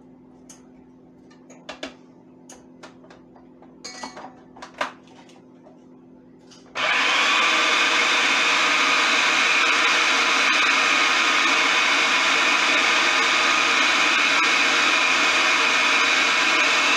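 Electric food processor chopping cooked chicken: its motor starts abruptly about seven seconds in and runs loud and steady. Before that, a few light knocks and clicks as the bowl is scraped down and the lid is handled.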